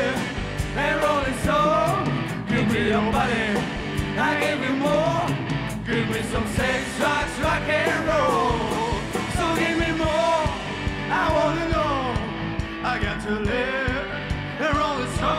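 Rock and roll song: a singer over a full band, playing steadily.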